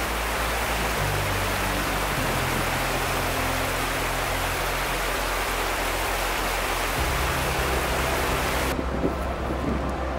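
Background music with low, steady notes, overlaid by a loud, even rushing noise that cuts off abruptly near the end.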